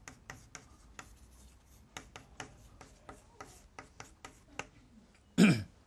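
Chalk writing on a blackboard: quick, irregular taps and short scrapes as characters are written. Near the end comes one brief, loud voice sound falling in pitch.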